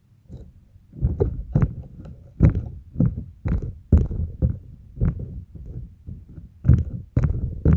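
Slime being squeezed and kneaded by hand, squelching and popping in a quick irregular series of short bursts, about two a second.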